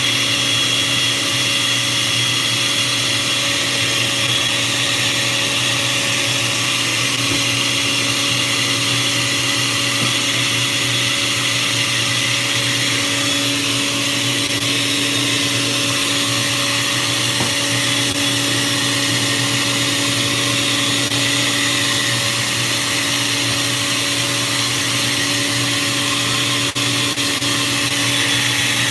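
Countertop blender running steadily, blending a jar full of thick banana and strawberry drink.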